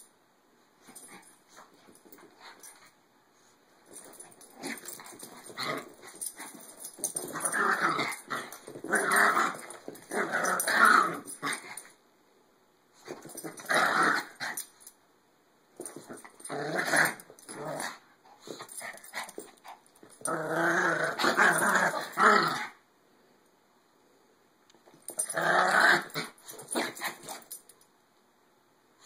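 Two Maltese dogs growling at each other in play-fighting, in about five bouts of a few seconds each with short quiet pauses between.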